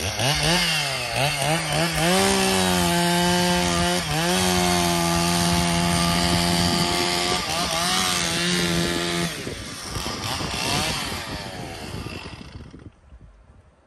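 A small engine revving up and down several times, then held at a steady high speed for several seconds. It drops off about nine seconds in, revs briefly again and fades away near the end.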